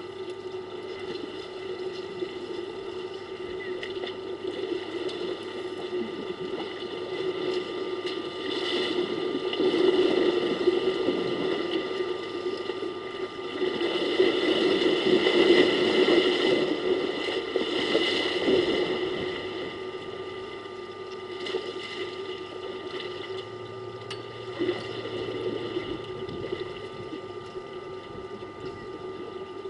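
African elephants wading and splashing in a waterhole. The splashing swells about ten seconds in and again midway, over a steady hum.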